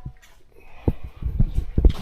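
A string of soft, low knocks and thumps, starting about a second in, from a work light and its mount being handled and positioned.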